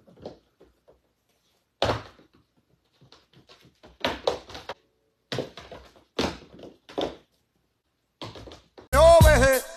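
Goat kids' hooves thunking and tapping on a hardwood floor and cushions as they jump and land: a scattered run of separate knocks. Music with a beat starts near the end.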